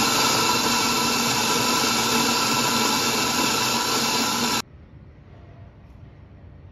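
Eureka Helios 65 electric flat-burr coffee grinder grinding beans: a loud, steady motor whir that cuts off suddenly about four and a half seconds in.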